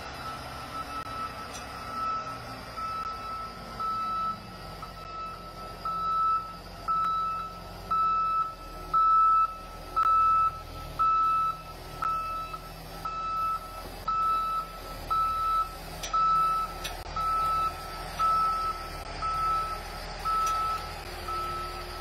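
A heavy truck's reversing alarm beeping about once a second, growing louder toward the middle and then fading, over the low steady rumble of its engine.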